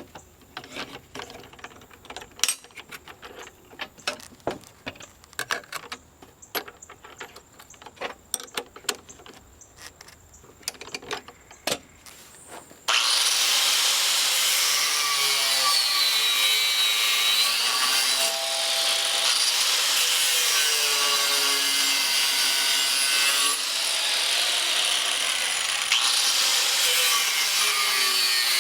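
Scattered clicks and knocks for about thirteen seconds. Then an angle grinder starts cutting through the steel blank for the blade: a loud, steady screech whose pitch wavers as the wheel bites.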